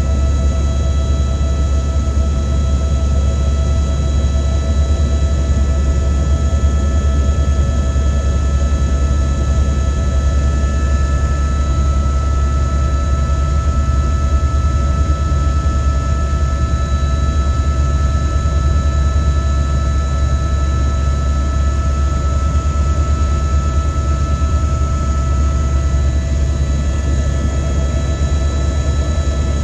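Helicopter running steadily: a loud low rotor drone with several steady high-pitched whining tones over it.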